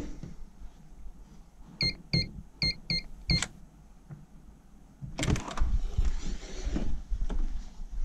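Five short electronic keypad beeps, one for each key press on a fake door keypad, all on the same pitch. About five seconds in, a hissing whoosh swells for a couple of seconds, like an automatic door opening.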